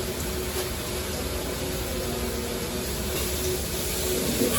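Steady, even rushing noise of a busy commercial kitchen, the running hood fan and gas burners, with a faint steady hum.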